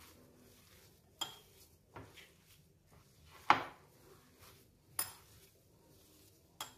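Glass mixing bowl knocking and clinking as semolina dough is kneaded by hand in it: five sharp knocks with a short glassy ring, the loudest about halfway through.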